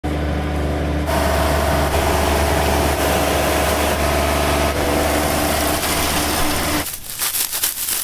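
Rice combine harvester running steadily: a loud, even machine drone. Near the end it gives way to a few crisp rasps of a hand sickle cutting through rice stalks.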